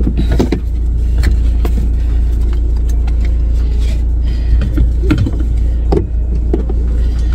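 Car engine idling, a steady low hum heard inside the cabin, with rustling and clicks as a seatbelt is pulled across and buckled, the latch clicking about six seconds in.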